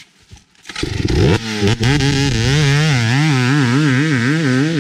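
KTM two-stroke dirt bike engine starting about a second in and rising quickly in pitch, then running loud with its pitch rising and falling about twice a second as the throttle is worked.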